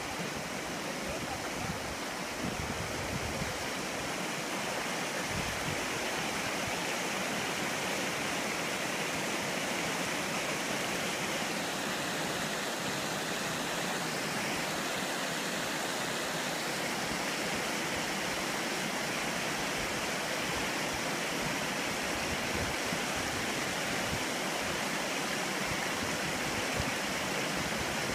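Flood runoff rushing over a roadway: a steady rush of flowing water.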